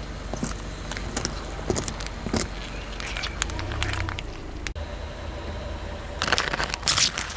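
Car tyre rolling slowly over small plastic jelly cups, the thin plastic crackling and popping as they burst, over a low engine hum. After a sudden cut, a louder burst of crackling near the end as the tyre crushes plastic cups of Orbeez water beads.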